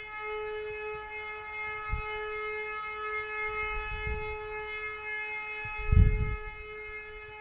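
E57 electromechanical fire siren holding a steady tone at constant pitch during a siren test. Strong wind buffets the microphone in low rumbling gusts, the loudest about six seconds in.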